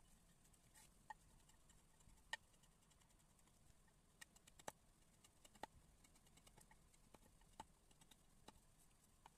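Faint, sparse, irregular clicks and ticks as a hand-pushed flat wood-carving chisel pares shavings from the wooden conch; otherwise near silence.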